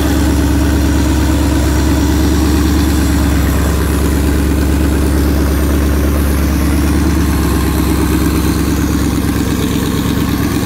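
Twin-turbo Mercedes-Benz M119 V8 idling steadily just after its first start, loud and even, its low note easing slightly near the end.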